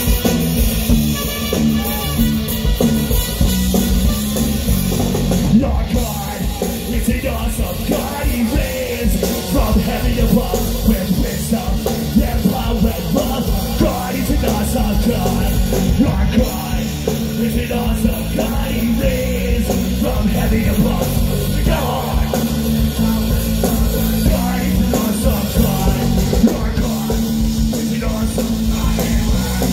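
Loud, dense rock music with drums.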